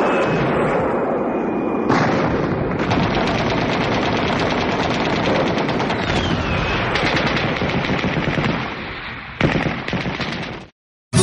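Sustained automatic machine-gun fire, dense rapid shots with a thin falling whistle about six seconds in. It fades, a final burst comes near the end, and it cuts off abruptly into silence.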